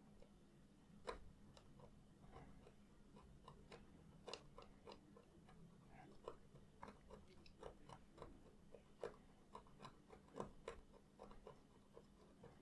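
Small hobby blade scraping the solder mask off a copper trace on a circuit board: faint, irregular little scratches and ticks, several a second.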